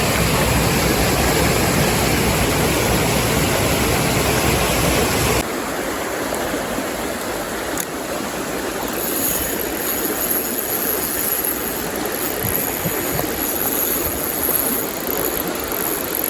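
Stream water rushing: a steady, even wash. About five seconds in it drops abruptly to a quieter, thinner wash, and a faint high steady whine appears midway.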